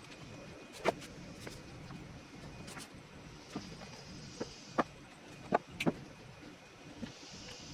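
Scattered short, sharp clicks and taps, about nine of them at irregular spacing, over a faint steady background hiss.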